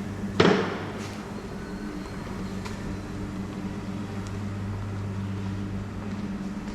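A single sharp knock about half a second in, over a steady low electrical hum.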